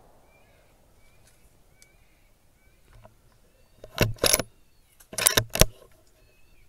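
Sharp metallic clicks and clunks of the rifle being handled, in two quick clusters about four seconds in and again about a second later. Faint short high chirps sound in the background.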